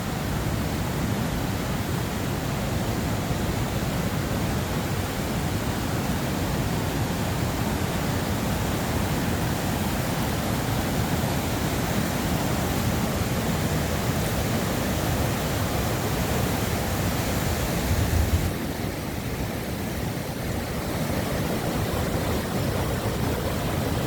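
Steady rush of swollen floodwater pouring and overflowing along a river in flood. About three-quarters of the way through there is a brief low bump, after which the rush sounds slightly duller.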